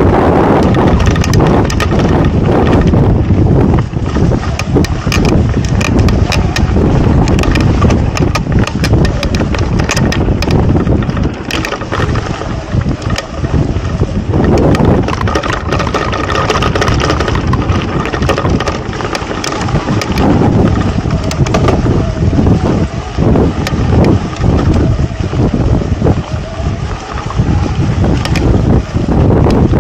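Wind buffeting the camera microphone while an electric mountain bike rolls along dry dirt singletrack: tyre noise on the dirt with frequent clicks and knocks from the bike going over bumps.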